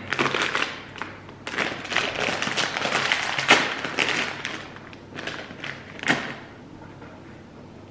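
Plastic snack bag crinkling and crackling as it is handled and opened, with irregular sharp crackles that die down about six seconds in.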